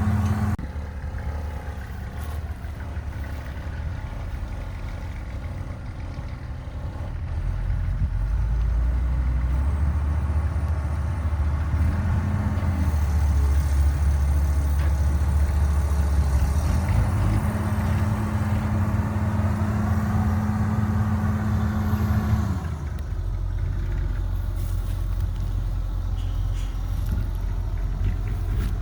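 Diesel engine of a Caterpillar 312B excavator running steadily, getting louder under load about eight seconds in and settling back down near the end.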